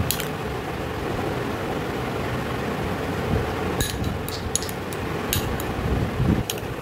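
A metal spoon clicks against a small container several times, most of them in a cluster a little past the middle, over a steady background hum like a room fan.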